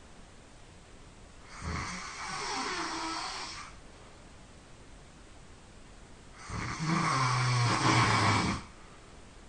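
A sleeping person snoring: two long snores about five seconds apart, the second louder and carrying a low buzzing tone.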